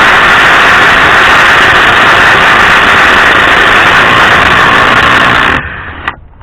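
Ryobi P235 brushed 18V impact driver hammering continuously in reverse on a truck lug nut, breaking it loose. It stops abruptly about five and a half seconds in.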